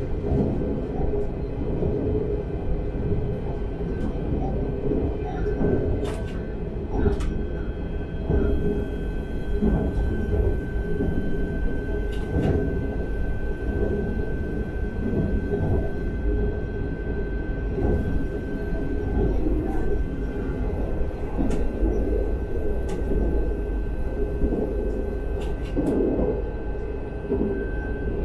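Talent 3 electric multiple unit running at line speed, heard from the driver's cab: a steady rumble of wheels on rail with a thin steady whine over it and a few sharp clicks now and then.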